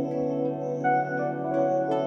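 Background music: calm new-age style with sustained notes that change pitch every so often.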